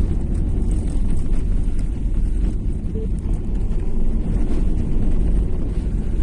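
Car engine and tyres, heard from inside the cabin while driving through snow: a steady low rumble.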